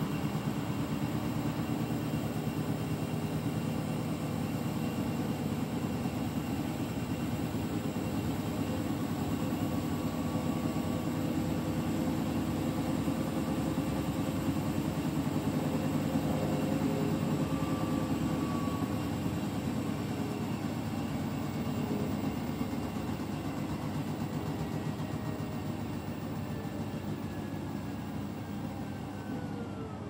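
Beko WTK104121W front-loading washing machine on its intermediate spin: the motor and drum run with a steady drone. From about two-thirds of the way through, a whine falls in pitch, dropping steeply near the end as the drum slows down.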